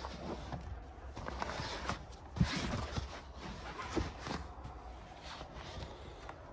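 Fabric rustling and a few soft thumps as stuff-sacked sleeping bags and bedding are handled on a car-boot mattress; the rustle is strongest in the middle, with the loudest thump about two and a half seconds in.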